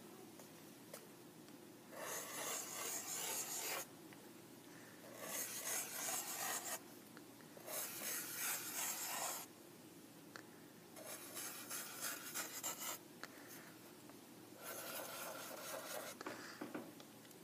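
Black Sharpie marker's felt tip rubbing and scratching across paper in five separate drawn strokes, each lasting about one and a half to two seconds, with short pauses between them.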